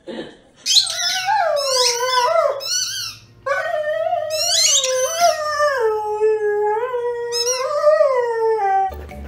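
Dog howling with a ball held in its mouth: a shorter wavering howl, then after a brief pause a long one of about five seconds that wavers up and down in pitch.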